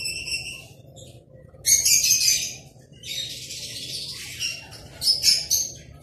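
Lovebirds chattering in short bursts of shrill, high-pitched chirps and screeches, the loudest burst about two seconds in, with more near the middle and about five seconds in.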